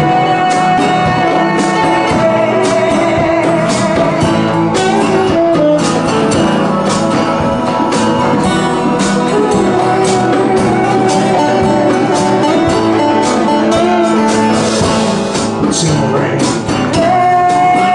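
A live band plays an instrumental passage: guitar and percussion keep a steady beat under a wavering lead melody line.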